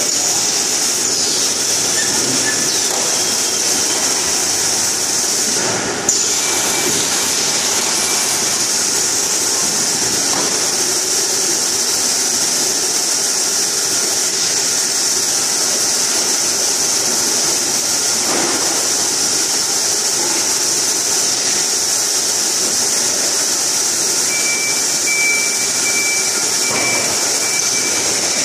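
Automatic carton packing line running: a steady high hiss over a constant machine drone, with a few faint knocks and a thin high whine near the end.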